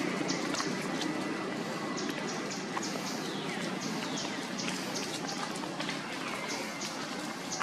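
Outdoor ambience of short high chirps repeating several times a second, with a few falling whistled calls a few seconds in, over light crackling of dry leaf litter.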